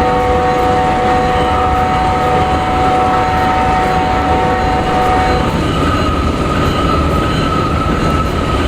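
Freight locomotive horn sounding a held chord over the steady rumble of a long coal train passing. The lower notes drop out about five and a half seconds in while a higher tone carries on.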